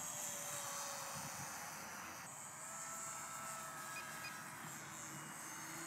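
Faint whine of a mini RC Spitfire warbird's small electric motor and propeller in flight, its pitch shifting a little as the plane moves around.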